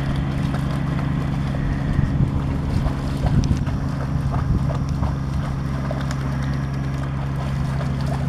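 A dog trotting through shallow river water, its paws splashing in an uneven patter, busiest about two to five seconds in, over a steady low rumble.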